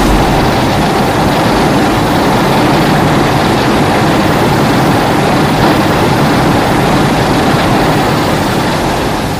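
Godzilla-film monster sound effect: a loud, steady rushing roar without a clear pitch. It starts abruptly and begins to fade near the end.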